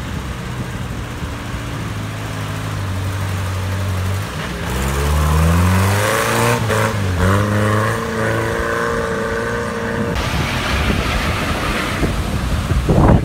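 Off-road 4x4 engines running and revving hard as the vehicles plough through deep water. The engine pitch climbs steeply about four to five seconds in as one vehicle accelerates. Water splashes throughout.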